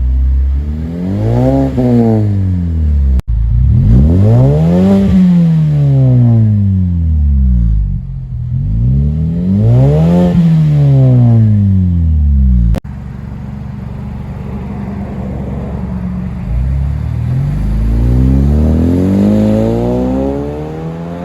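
2020 Mazda 3 hatchback's four-cylinder engine through a Corksport axle-back exhaust, blipped three times, each rev rising fast and falling back to idle. After a cut, the engine runs steadily and then climbs in pitch near the end as the car accelerates away.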